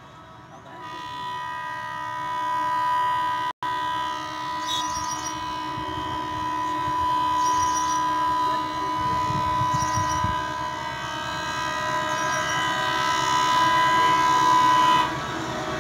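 Train horn held in one long steady blast, growing louder as the speed trial train approaches.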